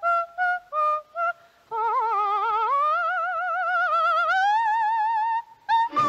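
Unaccompanied coloratura soprano cadenza: a few short detached high notes, a brief pause, then one long line with wide vibrato that climbs step by step.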